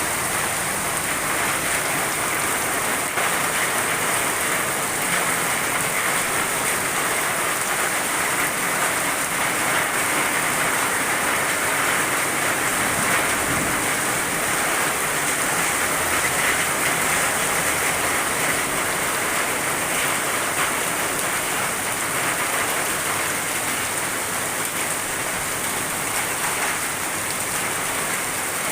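Heavy rain pouring down in a steady, unbroken downpour, with no let-up.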